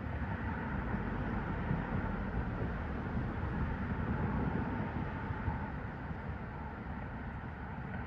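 Steady outdoor background noise, a low rumbling hiss with no distinct events.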